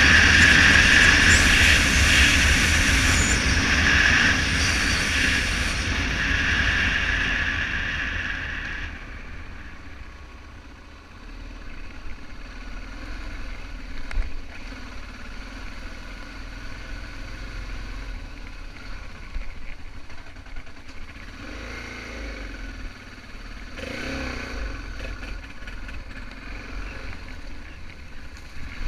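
BMW F650GS motorcycle running on an off-road ride. A loud rushing noise lasts about eight or nine seconds, then the sound drops to quieter, lower engine running with a few short knocks.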